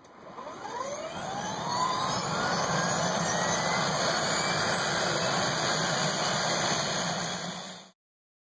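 Sound effect of a quadcopter drone's motors spinning up, a rising whine over the first two seconds or so, then running steadily with a low hum. It cuts off suddenly near the end.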